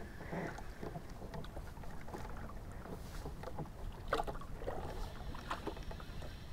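Background sound on a fishing boat on open water: a steady low rumble of water and wind, with a few short knocks and clicks, the loudest about four and five and a half seconds in.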